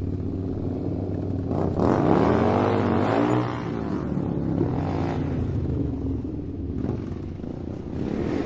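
Motorcycle engine running steadily, revved up and back down once about two seconds in, with smaller blips of the throttle later on.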